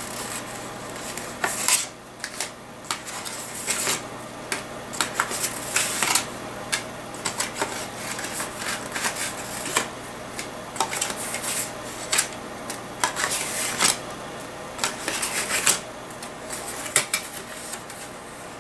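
Small hard objects and packaging being handled up close: irregular clicks, taps and rustling scattered throughout.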